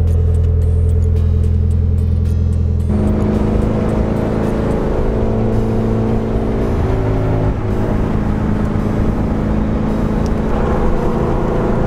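Background music with held chords that change every second or so, over the Mitsubishi Lancer Evolution 8 running on the road.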